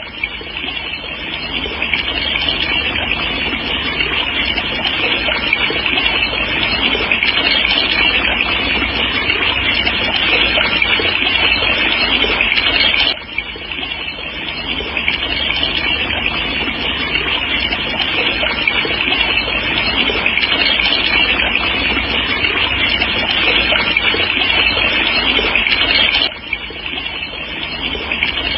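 Steady rushing hiss of beach ambience used as white noise, even and loud with no distinct events. It drops abruptly and swells back twice, about 13 seconds apart.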